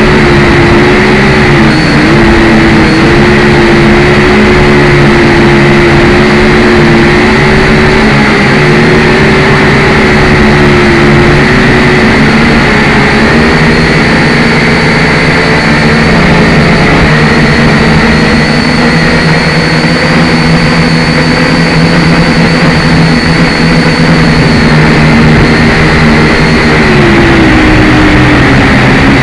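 Syma X5C toy quadcopter's four small brushed motors and propellers buzzing with a steady high whine. The pitch wavers, dipping briefly about a second in and sliding lower near the end as the throttle changes.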